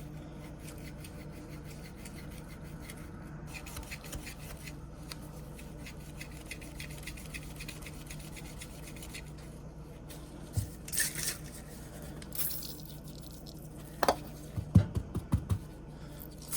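Light scraping and a few short metal clicks from an old pocket knife being handled and worked by hand, over a steady low hum. The clicks mostly come in the last few seconds.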